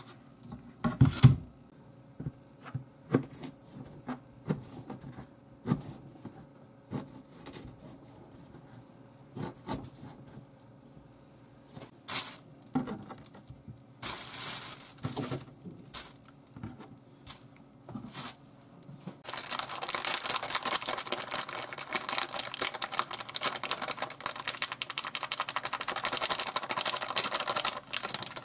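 Scattered knocks of a knife cutting pork on a plastic cutting board and rustles of a thin plastic bag, then, about two-thirds of the way in, a steady dense crinkling of the plastic bag being handled with the meat inside.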